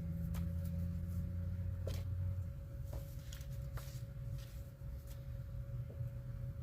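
Scattered light clicks and rustles of paper and cardboard being handled as fan mail is unpacked, over a steady low electrical hum.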